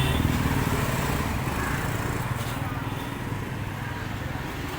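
A small motor-vehicle engine running steadily, with a low pulsing note that slowly gets quieter.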